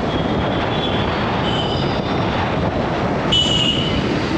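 Wind rush and road noise on the microphone of an electric scooter travelling at about 56–59 km/h, with brief thin high squeals on top, the loudest about three-quarters of the way through.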